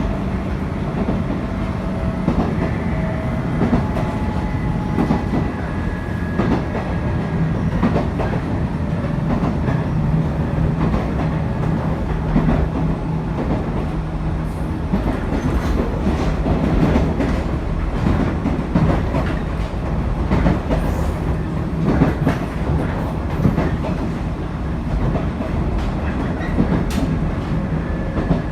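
JR East 719 series electric train running at speed, heard from on board: a steady rumble with a low hum that swells and fades, and wheels clicking over rail joints.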